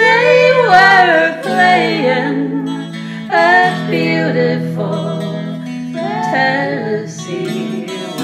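A woman singing a slow country waltz in layered harmony with her own overdubbed voices, over guitar accompaniment. The sung phrases have long held notes and die away near the end, leaving the guitar.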